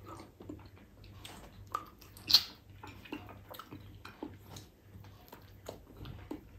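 Close-up eating of ripe mango: irregular wet smacking and chewing as the flesh is bitten off the skin, with one louder smack about two seconds in.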